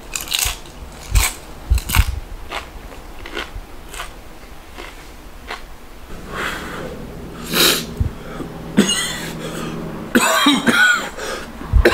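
A man coughing and clearing his throat from the burn of a habanero he has just eaten. Short clicks of chewing come first, then the coughs grow louder and come closer together in the last couple of seconds.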